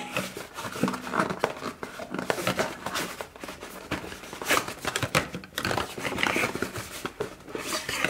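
Cardboard gift box and its packaging handled up close: irregular crinkling and rubbing with many light taps and clicks as the flaps are opened and the products are lifted out.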